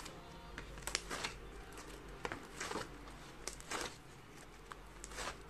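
Foamy slime being worked by hand, giving irregular crackling clicks and small pops.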